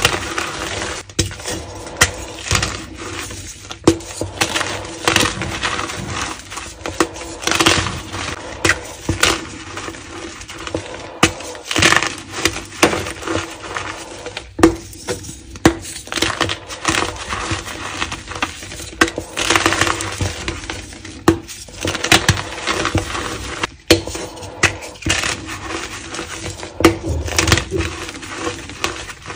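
Dyed gym chalk crushed and crumbled by hand, with irregular dry crunches and crackles as the blocks break apart in the fingers.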